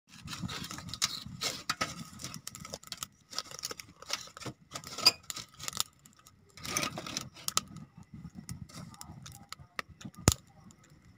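Close, irregular crinkling, rustling and clicking as a child's hands handle a roasted maize cob, with one sharp click about ten seconds in.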